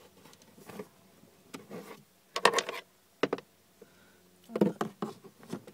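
Plastic scraping and knocking as a cabin air filter and its plastic housing cover are handled and pushed into place behind a car's glove box: several short, separate scrapes and knocks, the loudest about halfway through.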